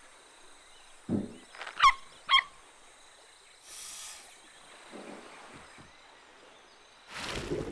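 Cartoon sound effects over faint steady forest ambience: a soft low thump, then two short, loud, wavering squeaky calls about half a second apart, a brief high hiss, and a burst of rushing noise near the end.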